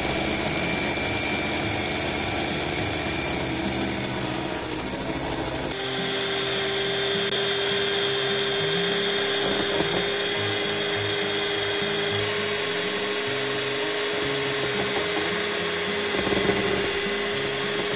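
Electric hand mixer running steadily, its twin beaters whipping egg whites in a ceramic bowl from liquid to stiff meringue. The motor's tone shifts about six seconds in and again around twelve seconds in.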